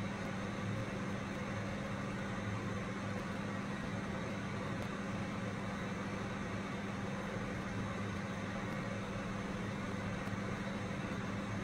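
Steady low machine hum with an even hiss, unchanging throughout.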